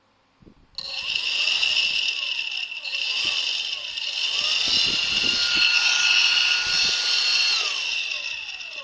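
Dynam 70 mm 12-blade electric ducted fan starting abruptly about a second in and running with a loud, high whine, its pitch rising and falling several times as the throttle is worked, then spooling down near the end.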